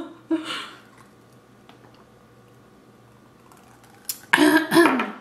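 Quiet eating mouth sounds with a few faint clicks, framed by two short voiced vocal noises: a brief one just after the start and a louder one with a falling pitch near the end.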